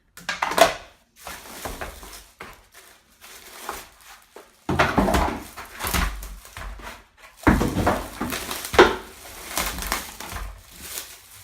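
Packaging being handled and unwrapped: plastic and cardboard crinkling and rustling in irregular bursts, louder around the middle and near the end.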